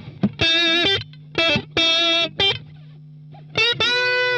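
Electric guitar played through a Boss Katana-100 amplifier with its delay and reverb turned down to zero: a handful of short, steady notes with pauses between them, and a longer held note near the end.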